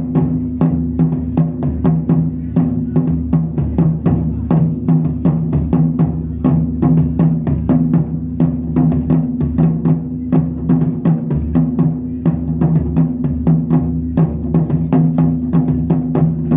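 Japanese taiko drums beaten in a fast, steady rhythm of about four strikes a second, the big drums ringing low under the hits.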